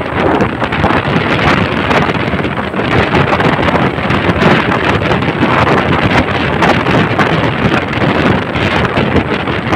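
Wind rushing and buffeting against the microphone of a moving vehicle, loud and continuous, with road noise underneath.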